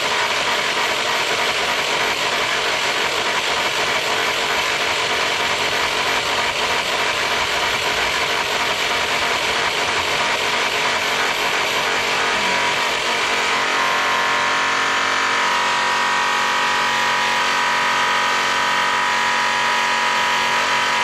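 DeWalt variable-speed polisher running steadily, its airway cloth buffing wheel, loaded with brown tripoli rouge, rubbing against a polished metal wheel: a motor whine over the hiss of the buff on the metal. About two-thirds of the way through the sound shifts and a clearer steady whine comes in.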